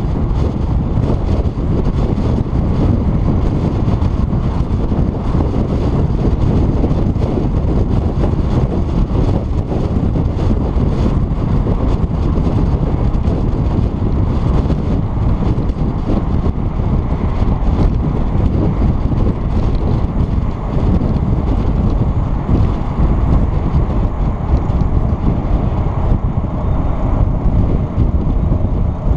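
Steady low rumble of wind buffeting a hood-mounted action camera's microphone on a moving car, mixed with the car's road noise.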